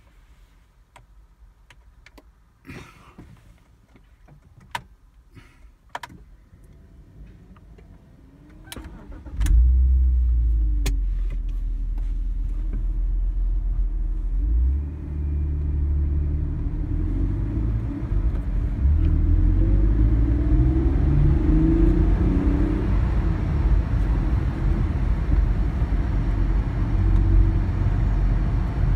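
BMW E46 320Ci's 2.2-litre straight-six being started cold: a few sharp clicks of the key and ignition, then a brief crank before the engine catches about nine seconds in. It settles into a steady idle, and the engine speed rises to about 2000 rpm in the second half.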